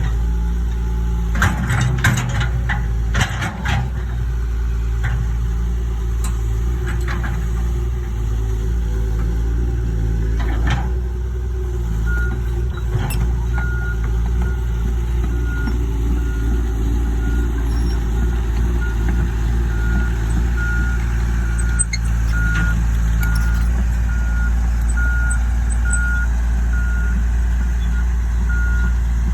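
Cat 315 LC excavator's diesel engine running steadily, with a few clanks and knocks in the first dozen seconds. About twelve seconds in, its travel alarm starts beeping about once a second as the machine moves.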